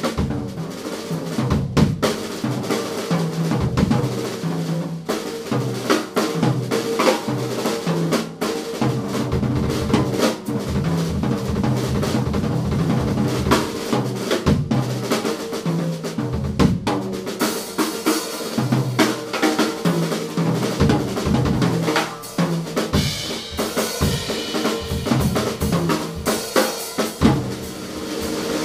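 Jazz drum kit played busily, with snare, bass drum and rimshot strikes, over upright bass and grand piano; the cymbals grow brighter and louder about two-thirds of the way in.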